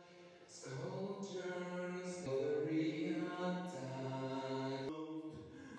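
A few voices singing slow, chant-like held notes in harmony. The sound fades in at the start and the notes step to new pitches every second or so, with a soft hiss like an 's' at the start of some notes.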